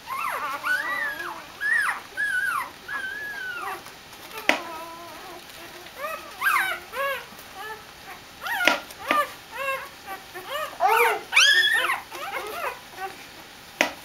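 Newborn Doberman puppies whimpering and squealing in a string of short, high, wavering cries, loudest near the end with a rising squeal. A few sharp clicks fall in between.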